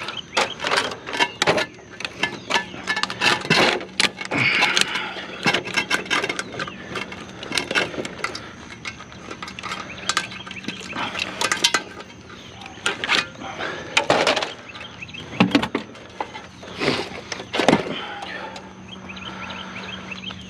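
Hand teardown of a discarded appliance for scrap: irregular clicks, knocks and clatter of its parts being pried and pulled apart, over a faint steady hum.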